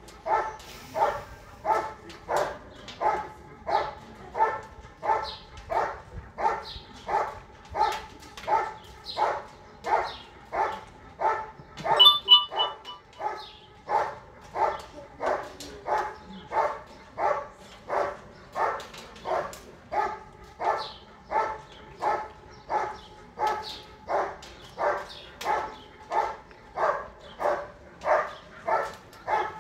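German Shepherd Dog barking steadily and rhythmically at the helper in the blind, about three barks every two seconds: the hold-and-bark exercise of IGP protection work. About twelve seconds in, a brief high-pitched tone sounds over the barking.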